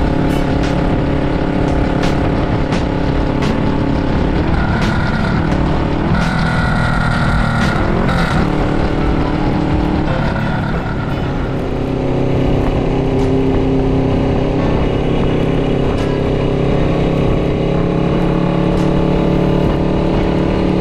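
Suzuki GS400 parallel-twin engine running through an SP Chara-o pipe exhaust with its silencer fitted, heard while riding. The engine note dips and rises a few times between about four and eight seconds in, then holds a steady pitch.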